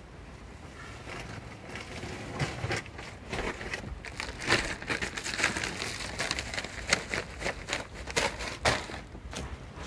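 Plastic garment bags and shirts rustling and crinkling as they are handled, in irregular crackles that grow busier after about two seconds.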